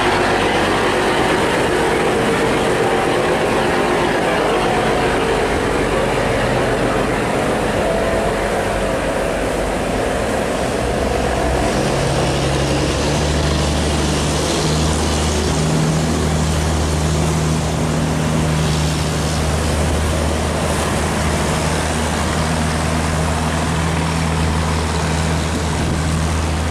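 Engines of steel cargo boats running hard against the current, over the rush of churned water. About twelve seconds in, the low drone of a nearer boat's engine takes over and holds steady.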